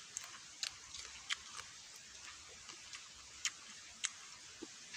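A person chewing raw catmon fruit, with a few sharp, irregularly spaced wet clicks and crunches from the mouth.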